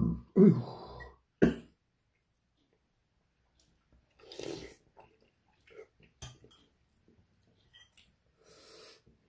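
A man burps behind his hand in the first second, then slurps a mouthful of ramyeon noodles about four and a half seconds in, with a fainter slurp or breath near the end. There are a couple of sharp clicks in between.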